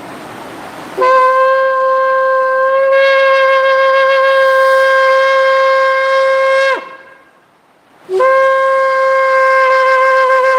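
A 99-centimetre shofar blown in two long, steady blasts at the same high pitch, each opening with a brief lower note before jumping up to it. The first blast lasts nearly six seconds; the second starts about eight seconds in.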